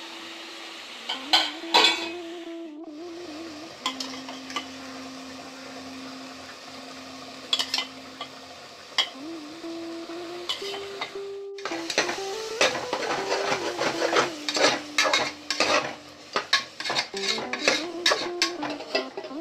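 Food sizzling as it fries in a pan, with a spoon stirring and scraping against the pan. The scraping grows busier and more frequent in the second half.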